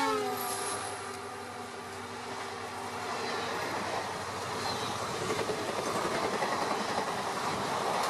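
An EMD diesel locomotive's horn drops in pitch and fades out in the first half-second as the engine passes at speed. Then the coaches of an express train rush by, their wheels clattering over the rail joints louder and louder.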